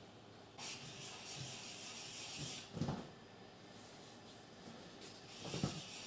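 Cloth wiping and rubbing over a plastic graphics-card fan shroud while it is cleaned with alcohol, a scratchy hiss in two spells, each ending in a short knock as the part is handled.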